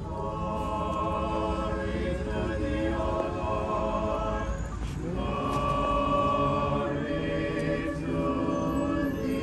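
Orthodox church choir chanting a short sung response in harmony, several voices holding long notes that change every second or two.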